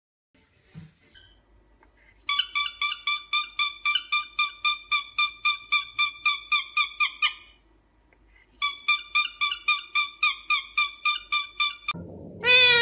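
Cockatiel giving rapid repeated whistled chirps, about four a second, in two runs of several seconds with a short pause between. Near the end an Indian ringneck parakeet gives a rising-and-falling call over background noise.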